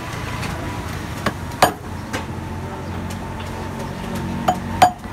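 Five sharp hammer knocks on the work inside a tub made from an old tyre. The loudest come about one and a half seconds in and just before the end, over a steady low hum.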